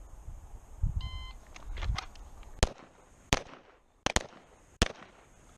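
Electronic shot-timer beep about a second in, then a Springfield XDm 5.25 9mm pistol firing five shots over about two seconds, two of them in quick succession.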